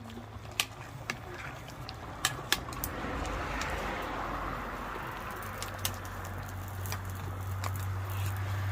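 A pot of stew simmering over an open wood fire: a bubbling hiss that swells about three seconds in, with a few sharp pops and crackles from the fire.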